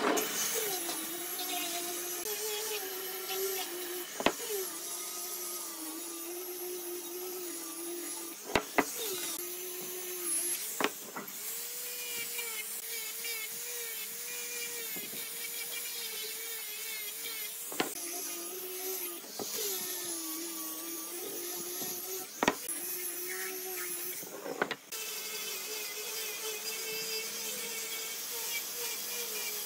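Handheld electric angle grinder with a sanding disc running and sanding wood, its whine wavering and dipping in pitch as the disc is pressed into the wood. A few sharp knocks are heard along the way.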